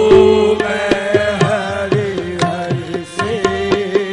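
Qawwali accompaniment between sung lines: a harmonium holding a sustained melody over a steady tabla rhythm of sharp, regular strokes.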